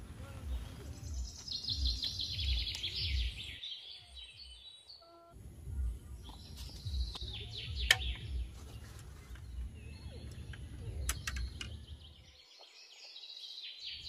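Birds chirping in quick, falling runs of notes over gusty wind rumbling on the microphone. A few sharp light clicks come near the middle.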